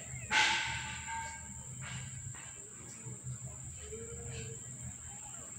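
Steady high-pitched insect drone over a low hum, with a short louder noisy burst about a third of a second in.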